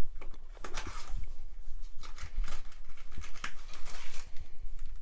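Paper sachets of medicated bath powder rustling and crinkling as a hand rummages in their cardboard box and pulls one out, in quick irregular scrapes and crackles.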